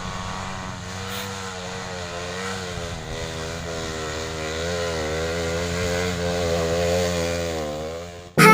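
Off-road trail motorcycle engine running, its revs rising and falling gently under the throttle. It cuts off suddenly near the end.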